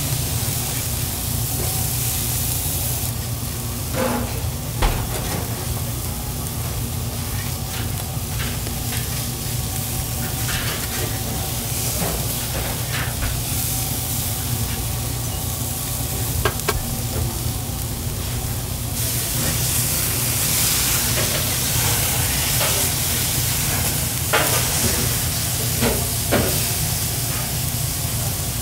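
Beef burger patties sizzling on a grill grate over hot coals, with a metal spatula now and then clicking and scraping against the grate. The sizzle grows brighter and louder past the middle.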